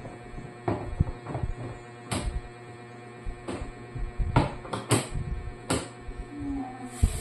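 Irregular knocks and clatter of kitchen items being handled and set down on a counter, about a dozen sharp hits over a low steady hum.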